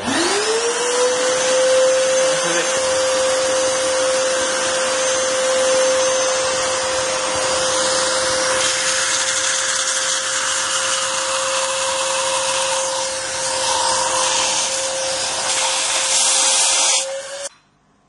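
Flama 1667FL 1600 W water-filter vacuum cleaner switched on: its motor whine rises over the first second to a steady pitch over loud rushing air. It runs evenly, then is switched off near the end and stops abruptly.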